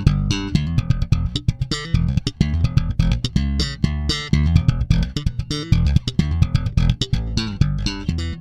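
Background music with a plucked bass guitar line and guitar, a quick run of notes.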